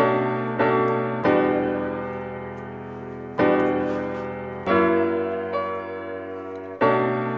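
Background piano music: slow chords, each struck and left to ring and fade before the next.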